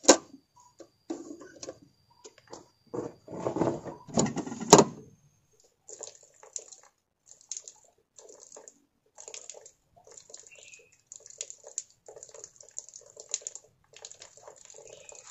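A metal kettle on a wood fire knocked and clanked while being handled, with one loud clunk about five seconds in. Then water splashing in quick repeated bursts: hands scooping water from a jerrycan's tap and splashing it onto the face, dripping to the ground.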